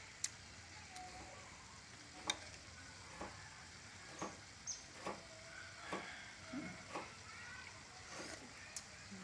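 Metal spoon clicking against a steel wok as a person eats from it: short sharp clicks roughly once a second over a faint steady hiss.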